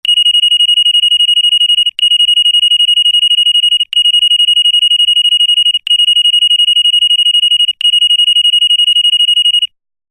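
Electronic ringer sounding a high, rapidly pulsing beep tone in five rings of about two seconds each, with barely a break between them, stopping near the end.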